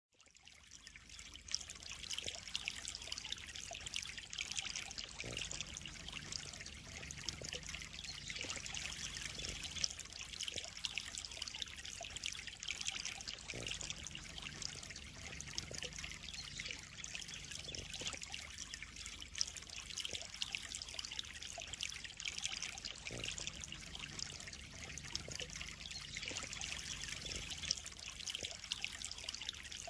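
Water trickling and splashing steadily into a koi pond: a continuous hiss of many small splashes that fades in over the first second or so.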